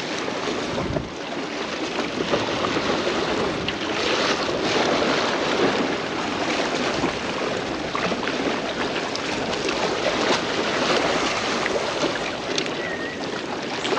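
Steady rushing of waves and surf washing against a jetty, with wind blowing on the microphone.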